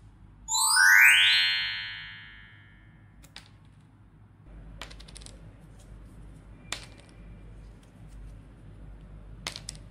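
A synthesized rising sweep sound effect about half a second in, fading away over about two seconds. After it come faint scattered clicks and light handling noise.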